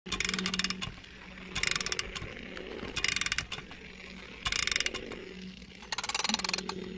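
Red toy ladybug's gear mechanism ratcheting in five short bursts of rapid clicks, about a second and a half apart, over a faint steady hum.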